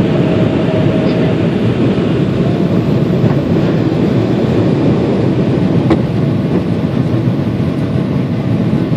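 Cabin noise of an Emirates Boeing 777-300 at takeoff thrust: the engines and rushing air make a steady, dense, low rumble as the jet lifts off and climbs away. A single sharp click about six seconds in.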